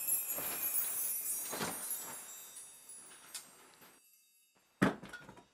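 A high, glittering chime shimmer that fades away over a few seconds, then a single sharp thump near the end.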